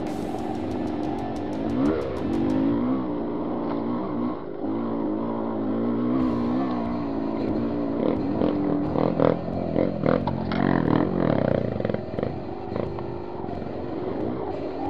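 Yamaha DT200R two-stroke dirt bike engine revving up and down at low trail speed. A run of knocks and rattles from the bike jolting over rough ground comes in the second half.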